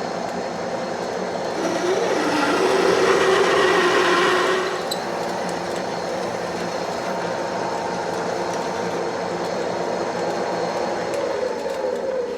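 Metal lathe running while a drill bit makes the final pass enlarging the bore of a small coupler. From about two to five seconds in, the cutting is louder, with a wavering squeal over the steady hum of the lathe.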